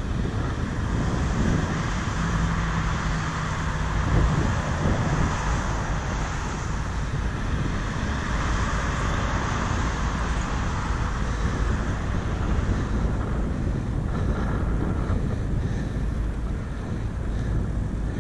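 Wind rushing over the microphone of a moving bicycle, a steady noise over a low rumble.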